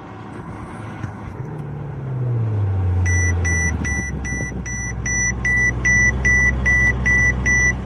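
Mercedes-Benz S65 AMG's twin-turbo V12 starting at the push of the start button: the engine note comes in about a second and a half in, flares, then drops in pitch as it settles to idle. From about three seconds in, a dashboard warning chime beeps steadily, close to three times a second, over the idling engine.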